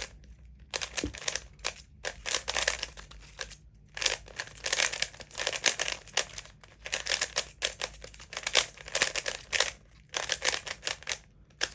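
Plastic 3x3 arrow cube's layers being turned rapidly, a fast clicking clatter in quick runs broken by a few short pauses, as the cube is scrambled and solved.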